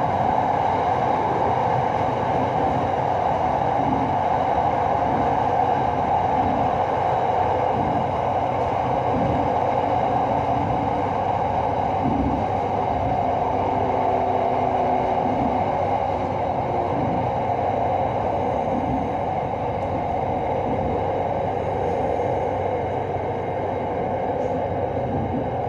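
Electric commuter train heard from inside the carriage while running on an elevated line: a steady rush and rumble of wheels and traction equipment. It eases slightly in level toward the end.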